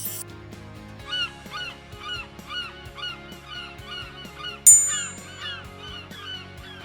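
An animal calling over and over, about two to three short calls a second, each a quick rise and fall in pitch, over soft background music. A bright chime rings once about two-thirds of the way through, louder than the calls.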